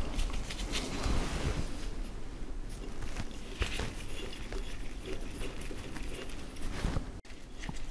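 Faint handling sounds and light metal clicks as a hex key turns a small screw fixing a table wiper to a surface grinder's saddle.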